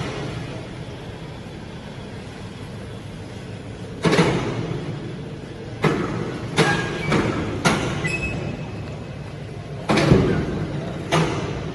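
Polypropylene meltblown nonwoven production line running with a steady hum, broken by sharp clanks, about seven of them, some with a brief metallic ring.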